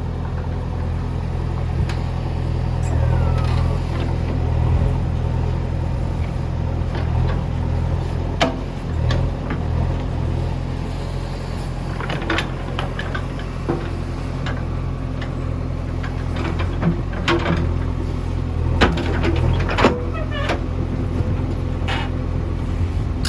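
JCB 3DX backhoe loader's diesel engine running at a steady pace, with scattered sharp knocks and clanks from the digging work several times over.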